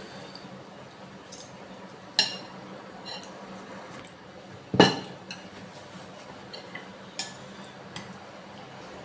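Eating utensils clinking and knocking against a bowl of bakso in a few separate sharp strikes, the loudest and fullest about halfway through, with smaller clicks between.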